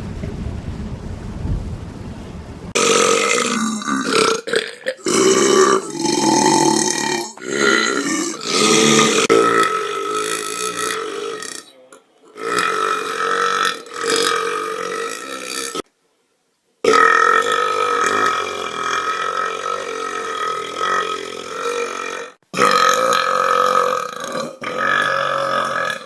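A run of men's long, drawn-out burps, one clip after another. Each burp stops abruptly where one clip cuts to the next, with brief silent gaps about 12, 16 and 22 seconds in.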